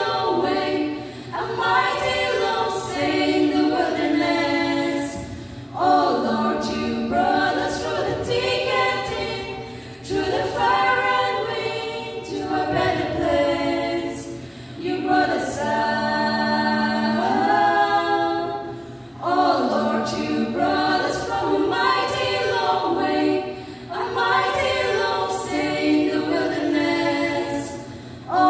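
A female vocal quartet singing a Christian gospel song a cappella, with no instruments. The song comes in phrases of a few seconds with short breaks between them, and several long held notes near the middle.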